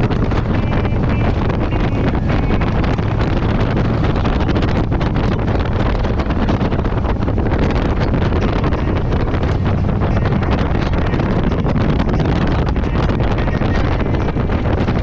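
Wind buffeting the microphone on a moving motorcycle, over the steady low drone of its engine at cruising speed.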